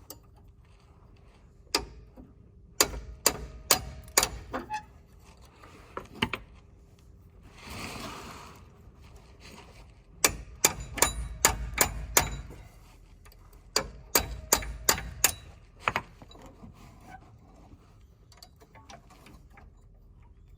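Sharp metal clicks and clinks in quick clusters from hand tools working on a truck's parking brake cable and its hardware, with a brief rushing noise about eight seconds in.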